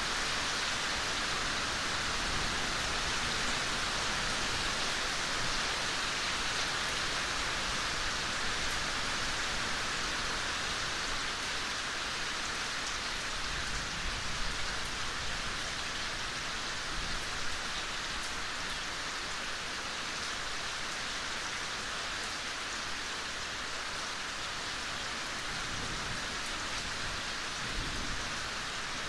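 Steady soft rain falling on forest foliage, an even hiss with faint scattered drop ticks.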